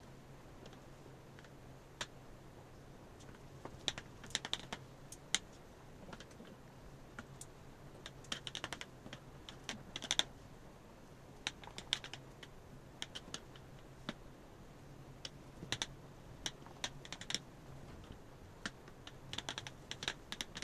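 Hands rolling and pressing modelling clay on a wooden tabletop: light, irregular taps and clicks in small clusters, over a steady low hum.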